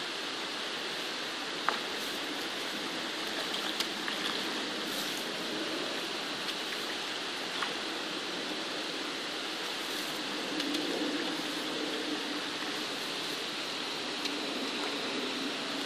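Shallow brook flowing steadily, a continuous rushing of water over a rippling surface, with a few small clicks.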